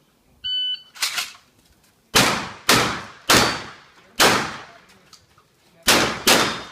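Shot-timer start beep about half a second in, then a string of shotgun shots: a fainter sharp report just after the beep, followed by six loud shots in uneven spacing over about four seconds, each dying away briefly.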